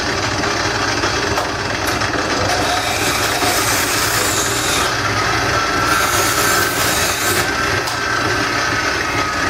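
Wood lathe running while a turning tool cuts into the spinning bowl blank: a steady scraping hiss of the cut over the even hum of the lathe, turning brighter for stretches around the middle as the tool bites harder.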